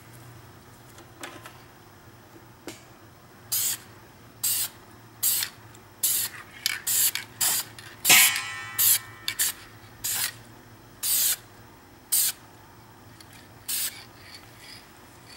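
Aerosol can of brown patina stain lacquer spraying in short bursts, about a dozen, beginning a few seconds in, with one longer burst about eight seconds in, as light coats are misted onto a copper sink.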